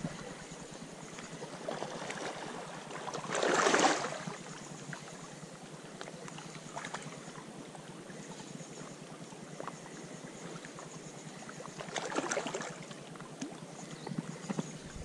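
Sea water washing and lapping against the rocks, swelling louder twice: about three and a half seconds in and again near twelve seconds.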